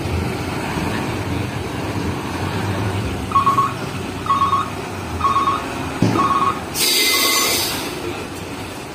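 Heavy diesel dump trucks idling and creeping forward in a slow line, a steady engine rumble. From about three seconds in a truck's warning beeper sounds five times, about once a second, and a short, loud hiss of released brake air comes near the three-quarter mark.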